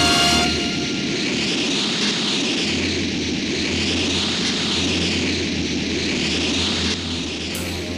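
A steady rushing noise sound effect with a sweeping, phasing hiss that rises and falls about every one and a half seconds, like a jet engine or an energy aura, taking over as a piece of music stops about half a second in.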